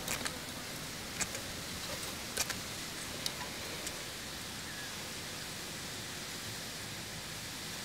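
Steady even hiss with a handful of small, sharp clicks in the first four seconds, from fingers working red rubber tubing and a fishing hook onto a leader.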